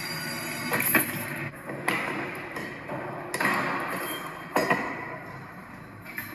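A handful of sharp knocks and clinks among rustling handling noise.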